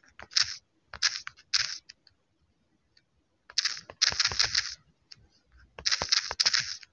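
Typing on a smartphone touchscreen keyboard: quick taps and clicks in about five short clusters, with pauses between them.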